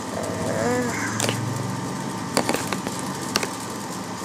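Hard plastic Lego Bionicle parts handled and pressed together, giving a few sharp clicks, over a steady low hum.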